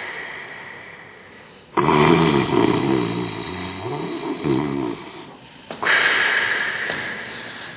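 A person snoring: a hissing breath, then a rattling snore of about three seconds with a wobbling pitch, then another hissing breath that fades out.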